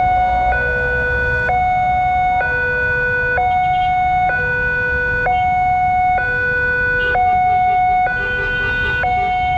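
Railway level-crossing alarm sounding an ambulance-like two-tone hi-lo wail through its loudspeaker, switching between a high and a low tone about once a second while the barrier is down. About seven seconds in, a second, faster pulsing alarm tone joins it, over a low rumble of waiting traffic.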